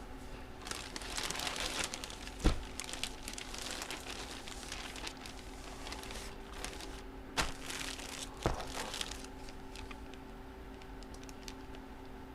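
Plastic packaging crinkling and rustling as it is handled, with a sharp snap about two and a half seconds in and two smaller clicks later on.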